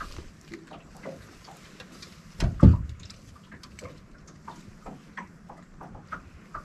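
Scattered light clicks and ticks, and one heavy low knock about two and a half seconds in, on the deck of a light aluminum fishing boat.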